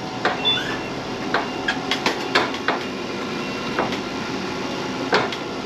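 Boat lift lowering a boat: its motor runs steadily while sharp knocks and clanks sound at uneven intervals as the lift moves.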